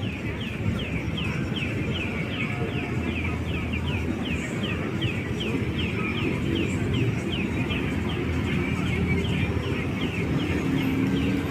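A bird giving short, high, falling chirps over and over, about two or three a second, over a low steady rumble.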